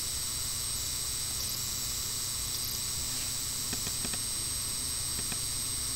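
Steady hiss of the recording's microphone and background noise, with a thin high whine and a low hum under it. A few faint clicks come about three to four seconds in, and one more near the end.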